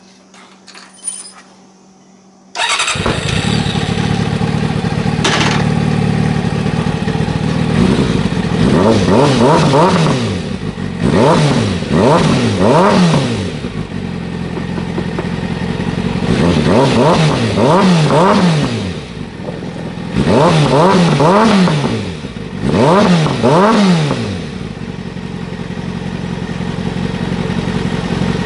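Kawasaki ZZR400's inline-four engine breathing through a carbon aftermarket silencer: it starts up about two and a half seconds in, idles, then is revved in quick throttle blips in groups of two or three, and settles back to idle near the end.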